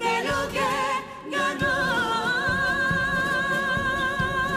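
Carnival comparsa chorus singing a pasodoble in several voices. After a short break about a second in, the voices hold one long note with vibrato.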